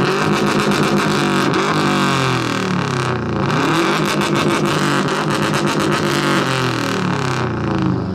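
Subaru car's exhaust as the engine is revved hard again and again, pitch climbing and falling with each blip, in a loud exhaust competition. The revving eases off near the end.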